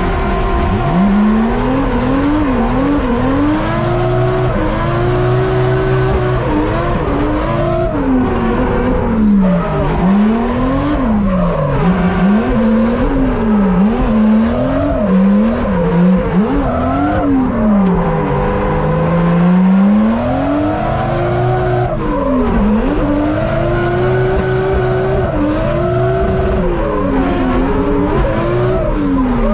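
Car engine heard from inside the cabin while the car is drifted. The revs climb and drop again and again, sometimes several times in a couple of seconds, with longer pulls near the middle and the end.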